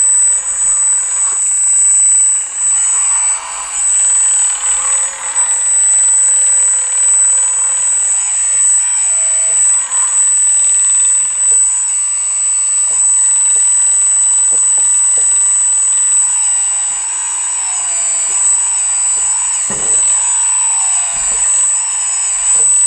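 Radio-controlled Bobcat skid steer loader with real hydraulics at work: a steady high-pitched whine from its running hydraulic system, under electric drive motors whirring that rise and fall in pitch as the machine drives, turns and raises its bucket, with a few small clicks.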